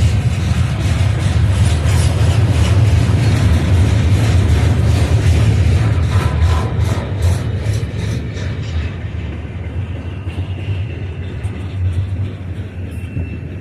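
Long freight train rolling past: a heavy, steady rumble with the clicking of wheels over the rails. It grows quieter from about eight seconds in.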